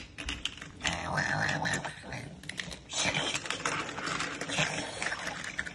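Small plastic toy cars clicking and clattering as they are set down and pushed along a hardwood floor, with two stretches of hissing noise.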